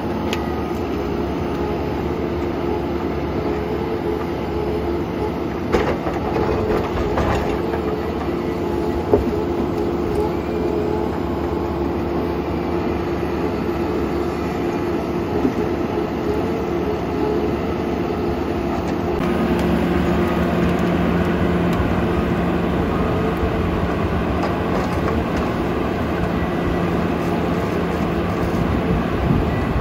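John Deere forwarder's diesel engine and hydraulics running steadily under load while its crane works logs, with a few sharp knocks. About two-thirds of the way through the sound changes to a John Deere harvester's diesel engine and hydraulics working, a little louder, as its head processes a tree.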